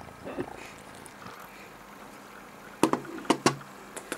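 A few sharp knocks and bumps close to the microphone, four in quick succession about three seconds in and one more near the end, as a long-haired cat bumps and rubs against the camera.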